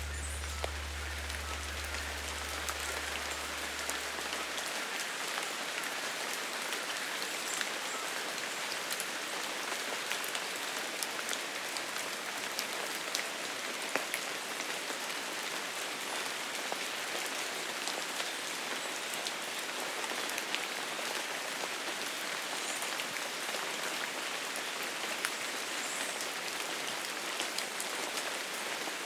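Steady rain pattering on leaves, with scattered louder drops ticking through it. A low bass note from music fades out in the first few seconds.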